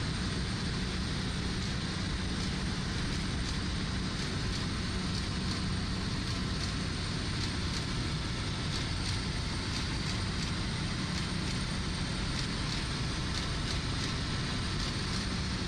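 Helicopter in flight, heard from aboard: a steady engine and rotor drone with a constant low hum and a wash of noise.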